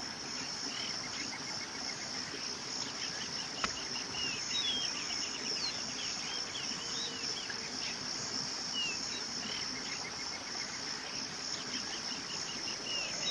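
Forest ambience: a steady high-pitched insect chorus with scattered short bird chirps and calls. A single sharp click about three and a half seconds in.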